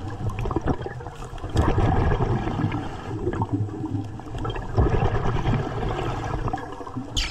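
Underwater bubbling and rushing from a hookah diver's air supply, with two louder surges of exhaled bubbles about three seconds apart.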